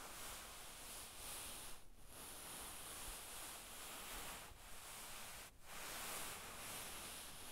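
A hand sliding and rubbing across fabric: a continuous soft rustle of cloth, broken by short pauses about two seconds in and again about five and a half seconds in.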